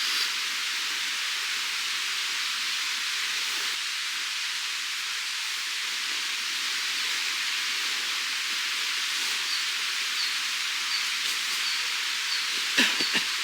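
Steady hissing noise, like rain or rushing water. In the second half, faint high chirps repeat about twice a second, and a few sharp clicks come near the end.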